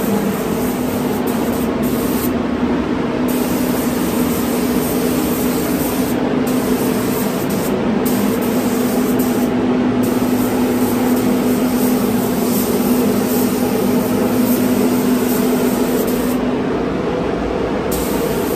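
Compressed-air paint spray gun hissing as it sprays epoxy primer, the spray stopping briefly about five times as the trigger is let off, over the steady hum of the spray booth's extraction.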